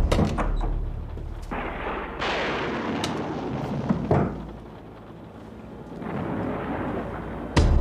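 Booming, rumbling suspense sound effects: noisy swells, a sharp hit about four seconds in, a brief lull, then a sudden loud boom near the end.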